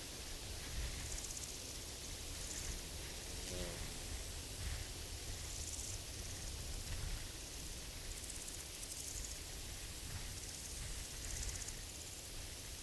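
Forest ambience: crickets chirping in short high-pitched pulsed bursts every second or so, over a low rumble of breeze. A brief faint call sounds about three and a half seconds in.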